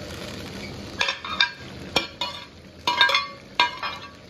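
Steel ladle clinking and scraping against a steel wok in which meat slices are cooking in warm oil, with a low steady sizzle under it. About half a dozen sharp metallic knocks begin about a second in.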